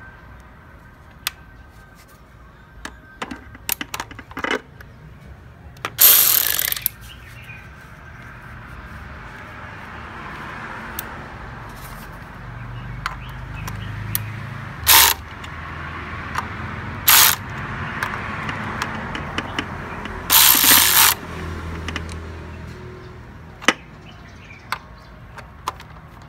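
Ratchet wrench on a socket extension turning a thermostat housing bolt on a Kia Sportage engine: scattered single clicks and four short, loud bursts of ratcheting.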